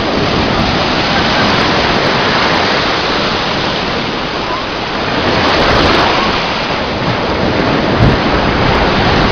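Loud, steady rushing of wind buffeting the microphone together with surf at the shoreline, swelling a little about six seconds in.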